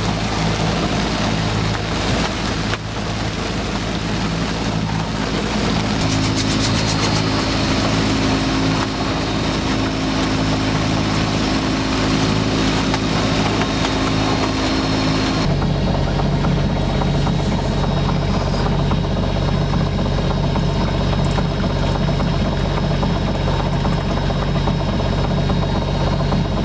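A sailboat's Vetus M3.29 inboard diesel engine running steadily under way, with wind and water noise over it. About halfway through the sound becomes deeper and more muffled, with less hiss, as the engine is heard from inside the cabin.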